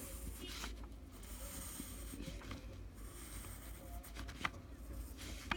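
Pencil scratching faintly on lined notebook paper as a curve is drawn, in a few short strokes over a low steady hum.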